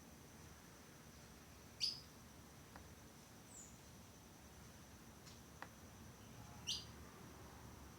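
A small bird chirping: two short, sharp high chirps about five seconds apart, with a fainter falling note between them. A faint steady high tone runs underneath.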